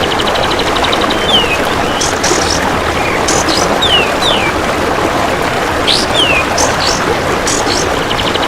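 A kapas tembak bird calling over and over, with short falling whistles and sharp high chirps about once a second. At the start a golden grasshopper gives a rapid, even ticking trill lasting about a second. The calls ride over a steady rushing background noise.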